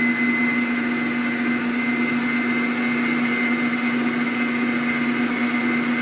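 Mondial stand mixer running steadily at one speed, its motor giving a constant hum with a high whine as the whisk beats a liquid strawberry ice-cream mixture in the steel bowl.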